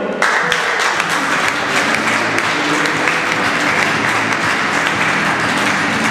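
Audience applauding, starting suddenly just after the start and holding steady.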